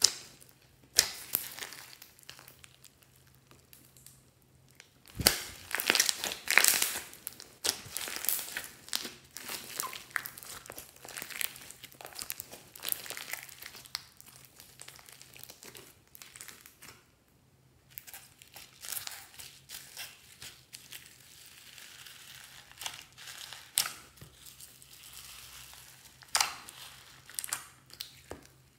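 Hands squeezing and kneading fluffy slime packed with foam beads, giving irregular wet clicks and crackles in clusters as the slime is pressed and pulled.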